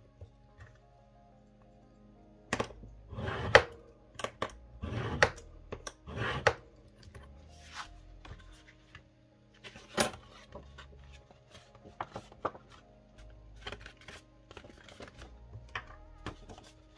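Heavy card-stock paper rustling and crackling in bursts as it is lifted, turned and folded on a cutting mat. The loudest handling comes between about 2.5 and 6.5 seconds in and again near 10 seconds, with lighter clicks and taps after that. Soft background music plays underneath.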